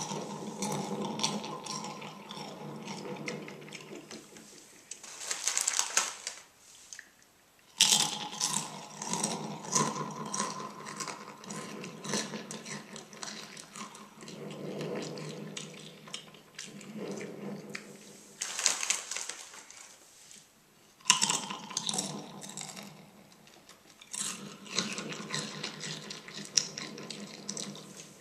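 Cool Ranch Doritos tortilla chips being bitten and chewed close up into a karaoke microphone, a dense crackly crunching. Louder bites come every few seconds, with short quieter pauses between them.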